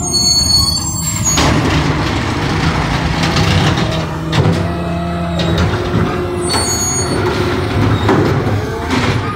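Automated side-loader garbage truck running, its diesel engine and hydraulics going steadily. Short high-pitched squeals come near the start and again about seven seconds in.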